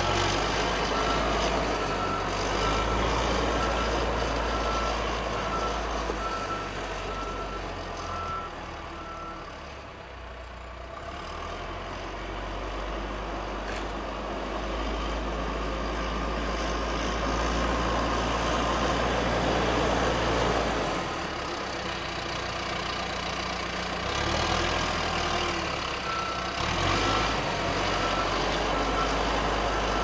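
Backhoe loader's diesel engine running as it pushes snow, with its reversing alarm beeping steadily for about the first third and again near the end. The engine grows louder through the middle as it works against the snow.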